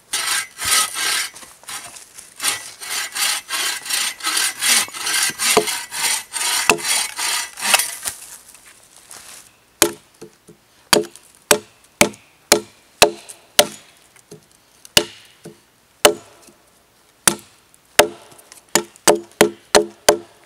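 A saw rasping through wood in quick, steady back-and-forth strokes for about the first nine seconds. Then a hatchet chops into a wooden stake to shape its point: sharp single knocks, spaced out at first and coming faster, about three a second, near the end.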